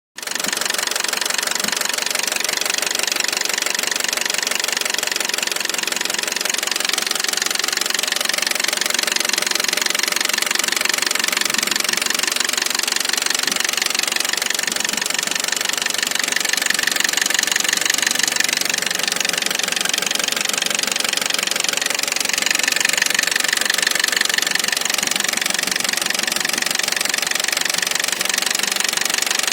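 Toyota 2NZ-FE four-cylinder engine running steadily with a fast, rhythmic knocking from the VVT-i camshaft phaser (variable valve timing clutch), the sign of a worn or faulty phaser.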